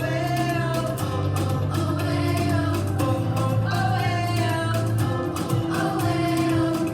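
Christian worship song: a group singing held, moving notes over a steady bass accompaniment.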